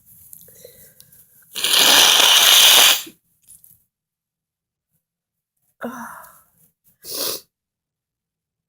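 A person sneezes loudly, in one burst lasting over a second, after a few short catching breaths. About three seconds later come two shorter breathy sounds, the second a sharp brief burst.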